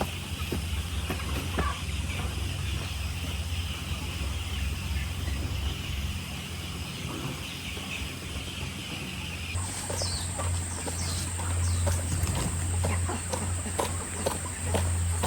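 Chickens clucking and calling over a steady low hum. About ten seconds in, a thin high whine starts along with many short, sharp calls and clicks.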